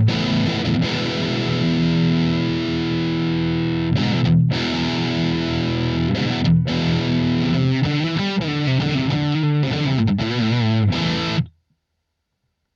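Electric guitar played through a Blackstar ID:Core Stereo 40 amplifier on a distorted, effects-laden tone: held chords, then a run of moving notes. The playing stops abruptly about a second before the end.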